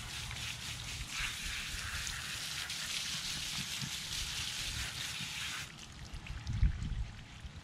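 Garden hose spray nozzle spraying water onto a wet dog's coat and the gravel beneath, a steady hiss that cuts off suddenly about six seconds in. A few low thumps follow near the end.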